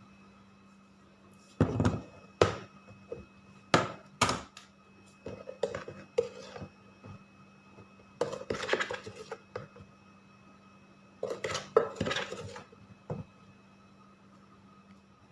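Kitchen dishes and utensils being handled: a run of sharp knocks and short bursts of clattering, coming in several separate spells.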